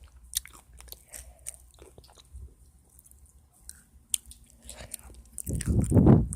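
Someone chewing and biting crunchy food close to the microphone: scattered sharp crunches, with a louder low mouth sound near the end.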